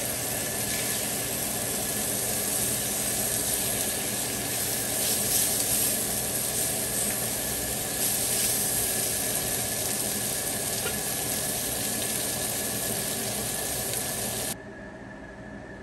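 Cod fillets, red onion and green onions sizzling steadily on a hot electric griddle as they are turned with a silicone spatula. The sizzle cuts off abruptly near the end.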